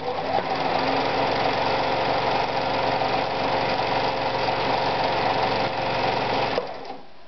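Husqvarna Practica 4010 sewing machine running steadily at speed, sewing a dense zigzag embroidery (satin) stitch at maximum width with a very short stitch length, then stopping suddenly near the end.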